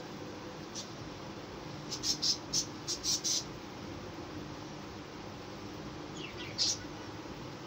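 Short, high-pitched chirps: a single one, then a quick cluster of several about two to three and a half seconds in, and one more near the end, over a steady low hum.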